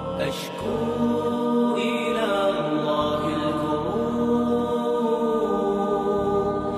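Background music: an Arabic nasheed, voices chanting on long, drawn-out notes with slow glides in pitch.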